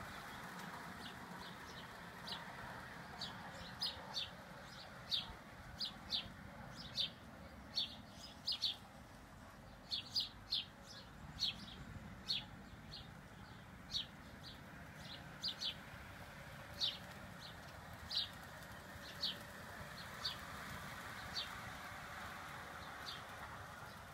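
A bird repeatedly gives short, sharp, high chirps at irregular intervals, about one a second. Underneath is a faint steady running noise from the O gauge model train on its track, which fades in the middle and comes back near the end.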